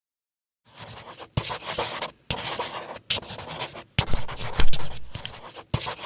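Marker pen writing: a series of scratchy strokes, each under a second, with brief breaks between them, starting a little under a second in.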